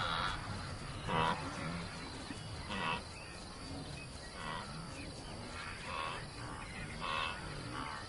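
Grazing herd animals calling: about six short, lowing grunts spaced a second or two apart, over a steady chirring of crickets.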